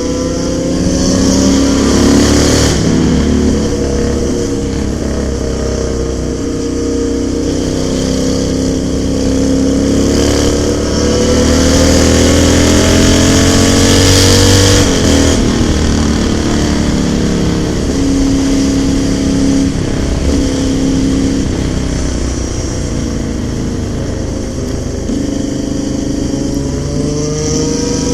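Motorcycle engines on the move: a Honda Shadow 600 V-twin and a Yamaha XJ6 inline-four with an aftermarket exhaust. The engine pitch rises and falls with throttle and gear changes, with a long rev-up about ten seconds in that drops off sharply around fifteen seconds.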